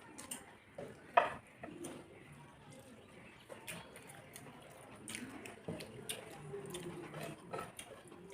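Eating sounds from a rice meal on a plate: soft chewing and mouth noises, with scattered clicks of food and fingers against the plate and one sharp clack about a second in. A pigeon coos in the background near the end.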